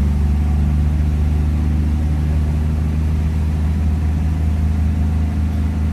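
Vehicle engine idling steadily: a low, even drone that holds one pitch, with no revving.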